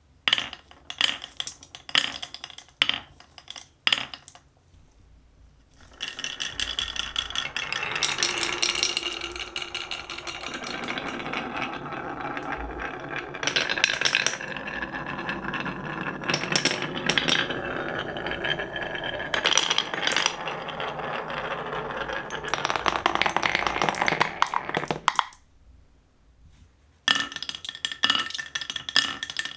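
Marbles on HABA wooden marble-run slopes: a few sharp clicks as they are set down and let go, then many marbles rolling and clattering down the zigzag wooden track for about twenty seconds. The clatter stops suddenly, and near the end there are more sharp clicks.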